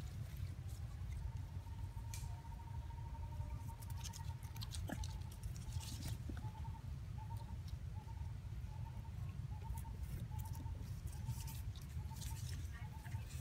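Macaques scrambling on tree bark, with light scratching and pattering clicks over a steady low rumble. A thin high note holds for a few seconds, then repeats as short notes about twice a second through the second half.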